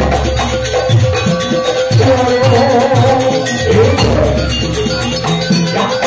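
Loud live jaranan campursari music: a steady beat of drums and shaken percussion under a held melody line, with a deep low boom at the start and again about four seconds in.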